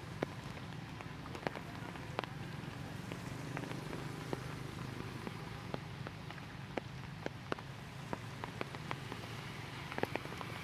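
Irregular drips and patters of rainwater falling from wet trees after rain, over a low steady hum.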